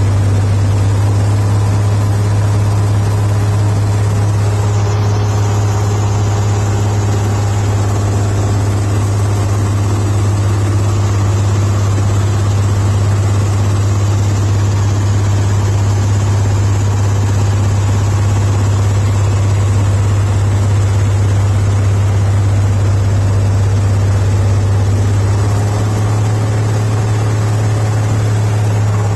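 Jabiru 3300 six-cylinder aircraft engine with Rotec liquid-cooled heads, running steadily at about 2,100 rpm with the propeller turning during a ground test run.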